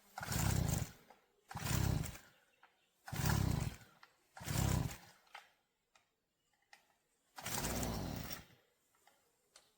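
Small engine of a hay-cutting machine revving in five short surges, each dying away between throttle pulls. It is not getting its full power, which the owner puts down to a fuel problem or the carburettor.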